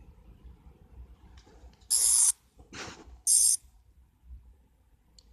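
Toy sonic screwdriver giving two short, high-pitched electronic buzzes about a second apart, with a brief hiss between them.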